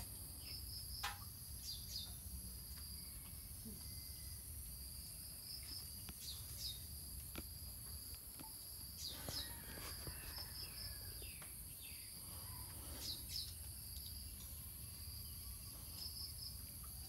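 Faint steady high-pitched insect trilling, with short chirps repeating over it, and soft rustles of movement near the middle.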